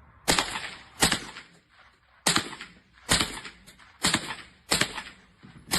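A string of rifle shots, about seven, fired at an uneven pace of roughly one a second, each sharp crack followed by a short fading echo.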